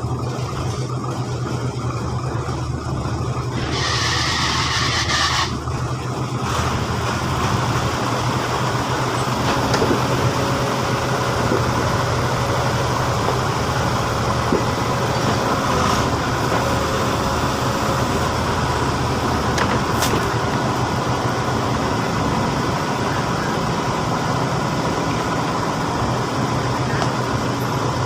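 Heavy diesel engine of earthmoving machinery running steadily, with a short hiss about four seconds in.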